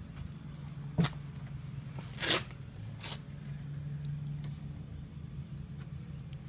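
Hands working plastic lawn-mower handle parts during assembly: a sharp click about a second in, then two short scraping rustles, over a low steady hum.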